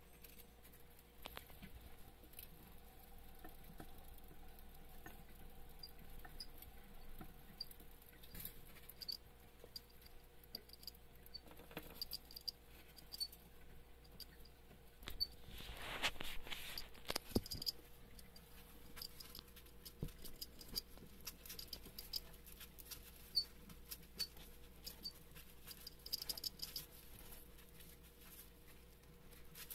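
Roborovski dwarf hamsters eating from a food bowl of seed mix: faint, scattered small clicks of nibbling and scrabbling among the seeds and bedding, with a louder rustle about halfway through.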